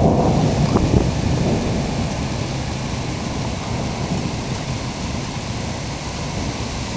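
An approaching thunderstorm. A low rumble is loudest in the first second or so, over a steady rushing noise that eases slightly afterwards.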